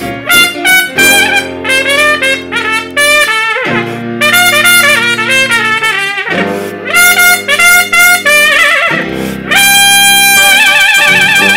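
Traditional jazz trio of trumpet, tuba and piano playing an instrumental chorus. The trumpet leads the melody in short phrases and, about two thirds of the way through, holds one long note with vibrato, over long sustained tuba bass notes and piano chords.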